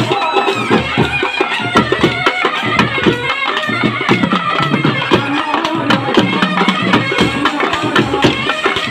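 Live South Indian folk music for a Kolatam dance: a large double-headed drum beaten with sticks in a fast, driving rhythm, small brass hand cymbals, and a man singing into a microphone, all loud and continuous.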